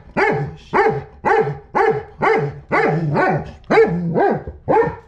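German Shepherd bitch in labor barking repeatedly through a muzzle, about ten sharp barks at roughly two a second.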